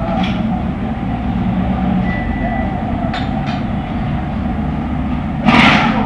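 Steady low machine rumble in a tyre workshop, with a few faint clicks and then a short, loud burst of hiss about five and a half seconds in.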